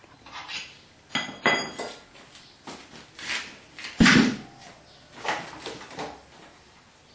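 Irregular metallic clanks and knocks, about a dozen, as the steel cylinders of a homemade wood-gasifier burner are handled, the loudest about four seconds in.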